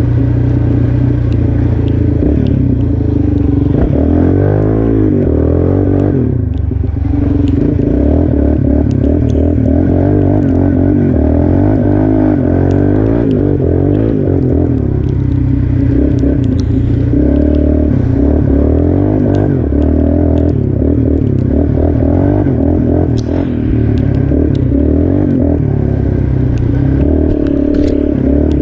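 Yamaha Raptor 350 ATV's single-cylinder four-stroke engine being ridden, revving up and down with the throttle, with scattered clatter. It pulls cleanly without cutting out, freshly rejetted with a 150 main jet.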